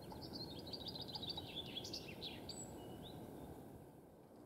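A small songbird sings one fast trilled phrase of high notes lasting about two seconds, then gives two short single notes. A steady low rumble of background noise runs underneath.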